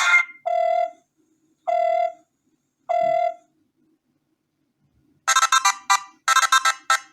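Preset ringtones playing on a BQ-5702 Spring smartphone. One melody cuts off, then a short identical tone sounds three times about a second apart. After a pause of about two seconds, a new ringtone starts with two quick runs of rapid notes.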